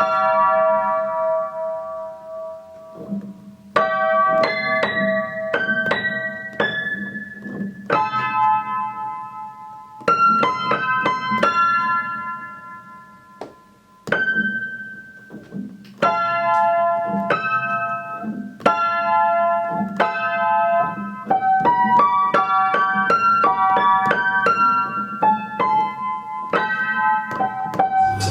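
Instrumental music: a piano-like keyboard playing a slow run of chords and single notes, each struck and left to ring out.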